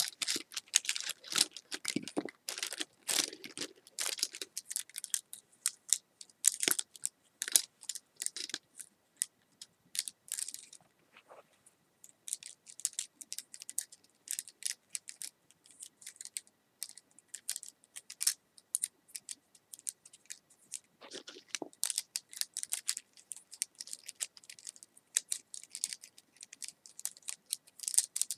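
Close-up ASMR sounds of objects being tapped and handled: a quick, irregular run of sharp clicks and rustles, thinning out briefly about eleven seconds in.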